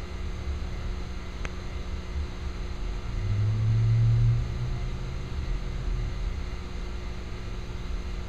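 A car's engine running low as the car pulls up and stops, rising to its loudest about three to four seconds in, over a steady low rumble and hum.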